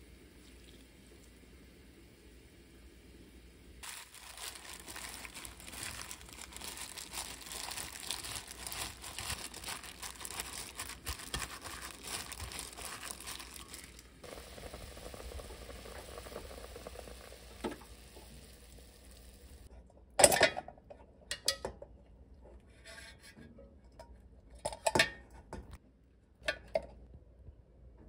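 Greens being tossed and mixed by hand with seasonings in a stainless steel bowl, a wet crinkling rustle that starts a few seconds in and softens after about ten seconds. Near the end come several sharp knocks and short bursts, the loudest sounds of all.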